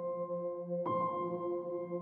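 Ambient background music: a bell-like tone struck once just under a second in and left to ring over steady held notes.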